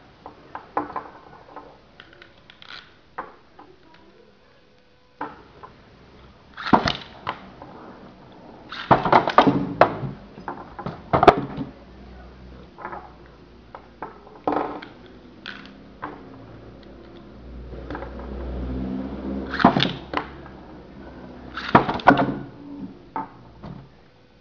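Two Beyblade metal spinning tops, Storm Pegasis 100RF and Lightning L-Drago 90RF, battling in a plastic stadium: bursts of sharp metal-on-metal clashes and clatter, with quieter stretches between.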